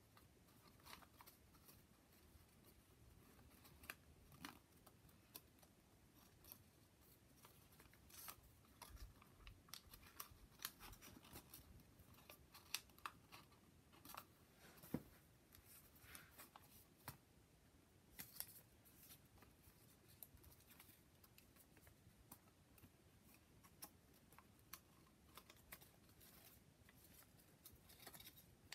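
Faint, irregular crisp rustles and small clicks of folded paper units being handled and tucked together into a modular origami polyhedron.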